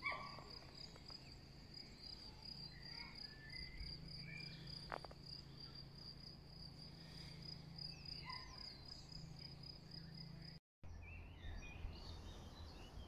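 A cricket singing a steady, rapidly pulsing trill, with birds chirping now and then. The trill stops at a cut near the end, and the bird chirps carry on.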